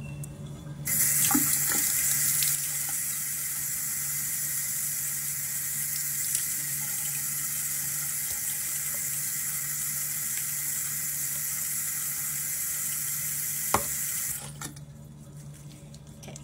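Bathroom tap turned on about a second in, water running steadily into the sink, a little stronger at first, then shut off suddenly near the end.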